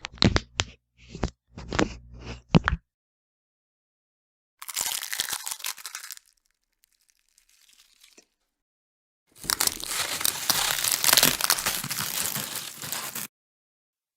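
Bone-break sound effects: a quick run of about eight sharp cracks, then a short crunch a few seconds later, then a long crackling, tearing crunch lasting about four seconds.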